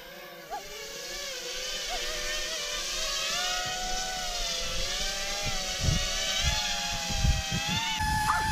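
Quadcopter drone's motors and propellers whining under load as it tows an inflatable boat on a rope. The pitch wavers up and down and slowly climbs as the throttle is worked. Near the end the whine settles into one steady tone, with low rumbling underneath.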